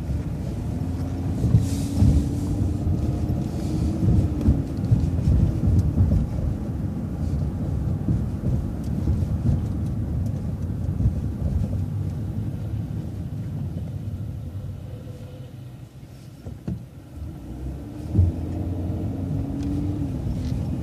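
MCO ViewMaster transit bus heard from on board: a steady low rumble of engine and road noise. The engine note rises as the bus pulls away about a second in, eases off and quietens around two-thirds of the way through, then climbs again near the end.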